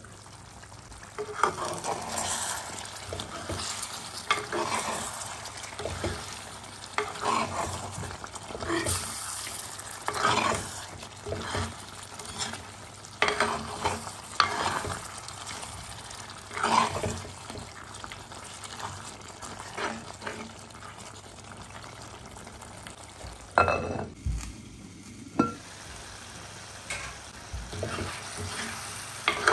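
Steel ladle stirring thick chicken and potato curry in a clay pot, with irregular scraping strokes against the pot and an occasional knock, over the sizzle of the curry cooking.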